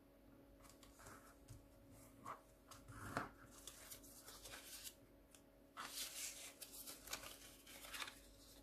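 Origami paper being handled and folded by hand: irregular crinkling and rustling with short sharp creasing noises. The loudest crinkle comes about three seconds in, and a longer stretch of rustling follows about six seconds in.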